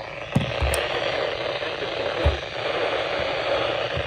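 Radio receiver hissing with static while tuned to a weather alert broadcast: the signal has dropped out to noise because reception is poor. A few short low thumps come through, about half a second in and again a little after two seconds.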